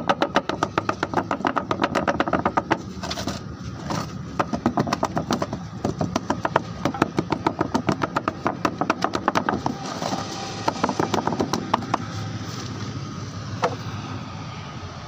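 Rapid, even tapping and rattling as fresh concrete is compacted in a plastic tuff-tile mould, several strokes a second, with short breaks about three seconds in and fading after about ten seconds.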